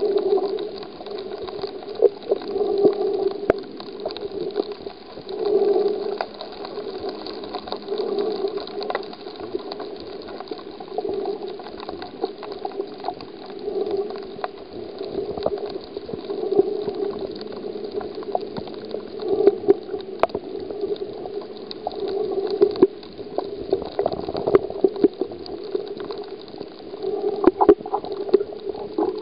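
Water heard underwater: a muffled sloshing and bubbling that swells every two to three seconds, with scattered sharp clicks.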